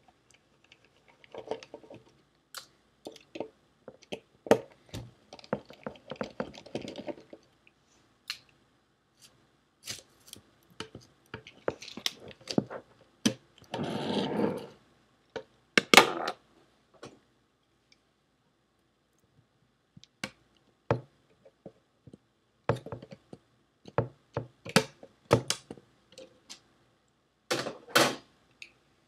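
Seagate ST410800N hard drive being taken apart by hand: scattered clicks and knocks of a screwdriver and metal parts, with stretches of scraping and rubbing as the circuit board and drive body are handled. The loudest is a sharp knock a little past halfway.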